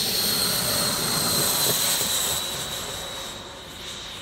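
The 120 mm electric ducted fan of a radio-controlled F-16 jet, on a 12-cell battery, running at full throttle on take-off: a steady high whine over a rush of air. The whine grows fainter after about two seconds as the jet moves away.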